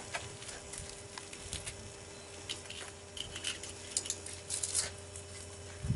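Footsteps crunching on snowy ground with light rustling, short irregular crunches that bunch together about four to five seconds in, over a faint steady hum.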